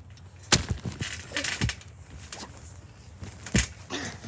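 A quick run of sharp knocks and thumps, then two more near the end.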